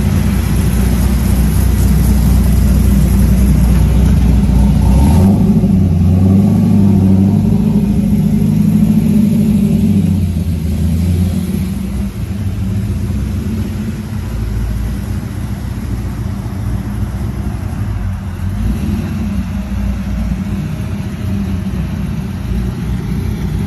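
C5 Corvette's 432-cubic-inch LSR V8 running, a loud low rumble for the first dozen seconds, then quieter and steadier for the rest, freshly tuned on 93-octane pump gas.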